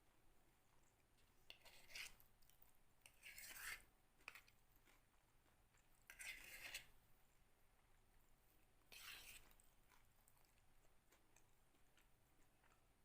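Faint crunching of food being bitten and chewed, in four short bursts a couple of seconds apart.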